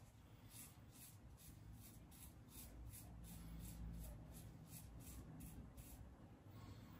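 Faint scratching of a Razorock ECO single-edge razor cutting through lathered heavy beard stubble, in quick short strokes about three a second that stop about a second before the end.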